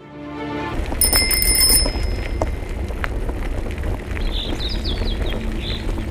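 Outdoor nature ambience fading in: a steady rushing noise with a low rumble, a brief bright bell-like ring about a second in, and birds chirping from about four seconds in.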